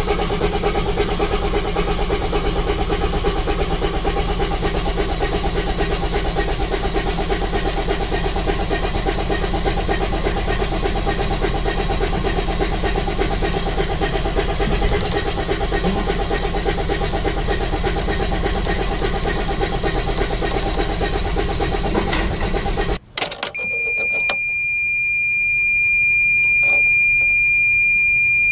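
Freightliner diesel engine turning over with a steady, fast pulse for about 23 seconds, then cutting off abruptly. A steady high electronic warning tone follows for about five seconds.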